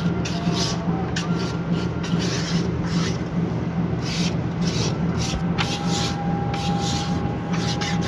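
A hand rubbing and smoothing the surface of a freshly cast ceramic squat toilet pan, short rasping strokes about twice a second.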